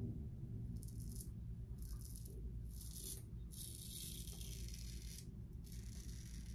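Global Shave Club Hurricane double-edge safety razor, brass head, cutting lathered beard stubble on the cheek: about five short scratchy rasps, one per stroke, over a low steady hum.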